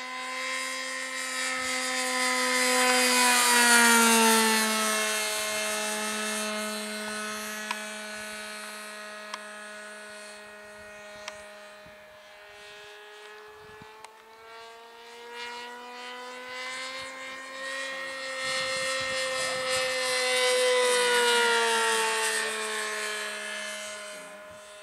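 Radio-controlled Aero-star .40 trainer's glow engine running in flight, a steady pitched engine note that swells and drops in pitch as the plane passes, twice, loudest about four seconds in and again around twenty seconds. Its loose muffler has just been refastened and it sounds much quieter.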